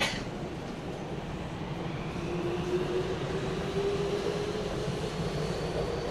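Tokyo Metro 9000 series train heard from inside the car, with a steady low running rumble. A sharp click sounds right at the start. From about two seconds in, the motor whine climbs slowly in pitch as the train picks up speed.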